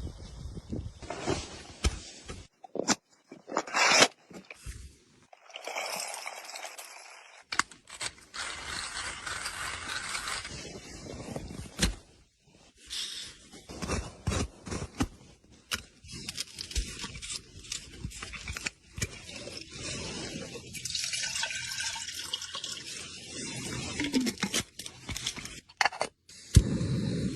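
Camp coffee-making sounds: water being poured and sloshing, with scrapes and sharp clinks of cookware.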